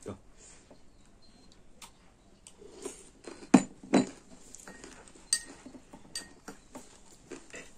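Metal spoon clinking and scraping against glass bowls in short, irregular clicks, some with a brief glassy ring, with two louder knocks about halfway through. Chewing of wild olive (heiyai) fruit is heard between the clinks.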